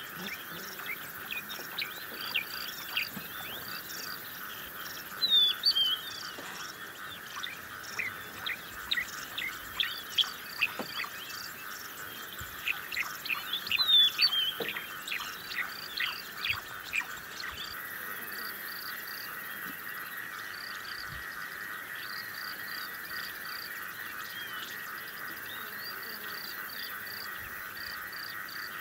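Wild birds calling and chirping over a steady chorus of insects and frogs. Several loud falling calls stand out, about 5 and 14 seconds in. The chirping thins out after about 17 seconds, leaving mostly the steady chorus.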